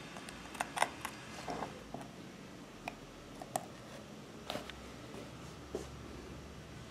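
Light, scattered clicks and taps as a sewing-machine bobbin is fitted into a short PVC plastic tube and the tube is set down on a work bench, about a dozen small knocks spread irregularly over a few seconds.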